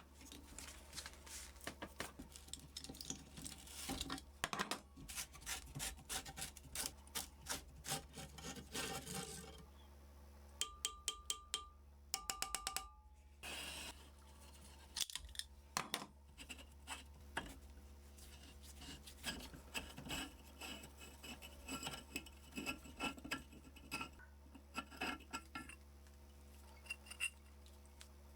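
Hand work on a rusty antique steel wrench: repeated scraping and rubbing strokes on metal, with many small clicks and taps. About halfway through comes a quick run of even, slightly ringing clicks.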